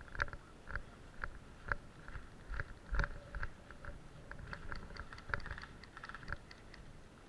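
Crunching footsteps, about two a second, with lighter rustles and ticks between the steps.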